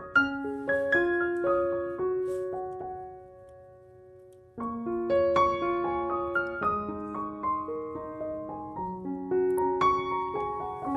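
Background music: solo piano playing a gentle melody, with a short pause about four seconds in before the next phrase begins.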